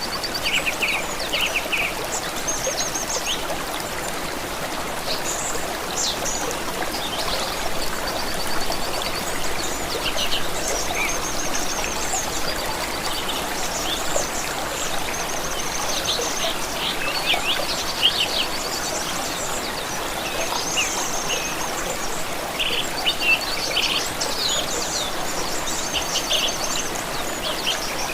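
Running water from a stream or brook, a steady rush, with several small birds singing over it in repeated short chirps and rapid trills.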